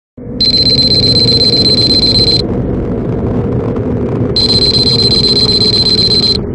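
A loud rumbling sound effect with a high, steady alarm-like tone that sounds twice, each time for about two seconds, with a two-second gap between.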